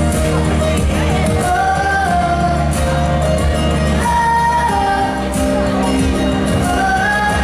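Male pop vocalist singing live over a backed pop track, holding long notes that slide between pitches above a steady bass line.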